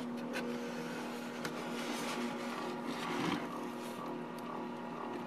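Little Giant egg incubator running with a steady electric hum, while its foam lid is handled and lifted open with a few light clicks and a brief scrape about three seconds in.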